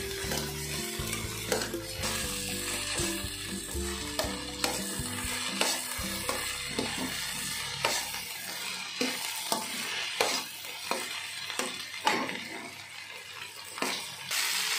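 Chopped okra sizzling steadily in hot oil in a stainless-steel kadhai while a metal spatula stirs it, scraping and knocking against the pan about once or twice a second.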